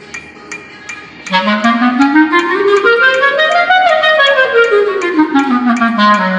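Clarinet playing a scale: from about a second in it climbs note by note and then runs back down to the starting note near the end. Steady ticking about four times a second runs underneath.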